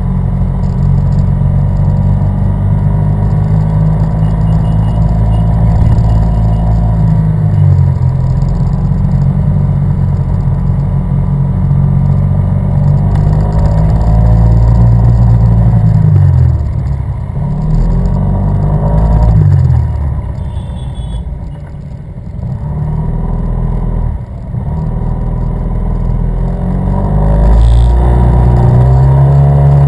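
Yamaha TMAX 500 maxi-scooter's parallel-twin engine running close up from on board, its pitch dropping as the throttle is closed and rising again as it is opened, several times over. A steady low rush of wind runs underneath.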